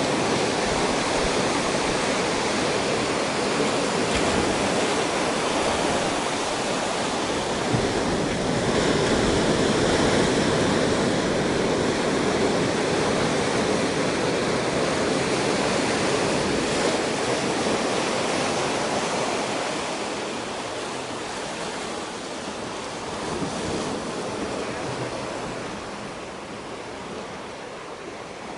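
Ocean surf breaking and washing in among rocks on the shore, a steady rush of water that grows quieter over the last ten seconds, with one brief swell in between.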